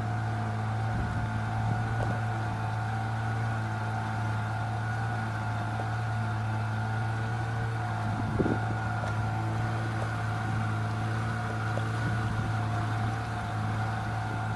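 Boat engine running steadily: an unchanging low hum with a fainter steady whine above it, and one brief knock about eight seconds in.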